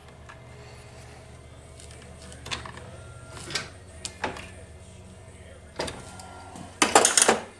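Scattered clicks and scrapes from handling a chainsaw's 20-inch bar and 3/8 chain while it is being oiled, ending in a louder rasping rattle of about half a second near the end, over a steady low hum.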